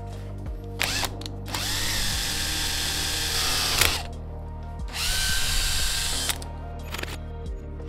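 Power drill running in two bursts, a bit boring into a small metal handle part clamped in a vise; each burst opens with a rising whine as the motor spins up, then holds steady. Background music plays underneath.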